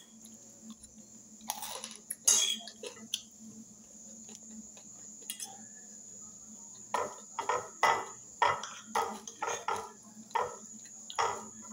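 Metal fork clicking and scraping against a glass plate as food is gathered up, a few sharp clinks in the first half. In the second half, a run of short soft sounds about two a second, chewing.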